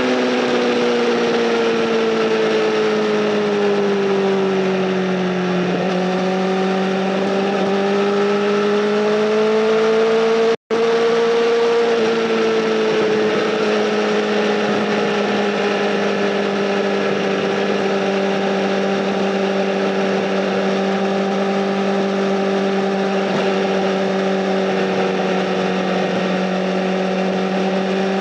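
Honda Fireblade SC59's inline-four engine through a Bodis aftermarket exhaust, running at steady mid revs while riding. The pitch eases down over the first few seconds, climbs again, then holds level, with a brief cut-out in the sound about ten seconds in.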